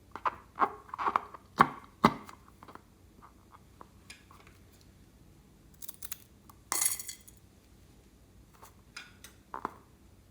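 Close-up handling noises from slime making: a quick run of sharp clicks and wet snaps in the first two seconds, a brief hissy rush about seven seconds in, and a few more clicks near the end.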